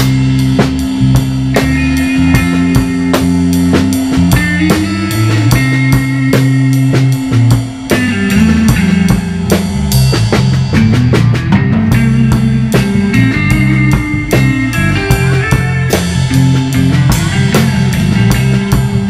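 Live instrumental jam by a drums, bass and electric guitar trio, with the drum kit loudest and close up: kick drum and snare hits over a moving bass line and guitar lines.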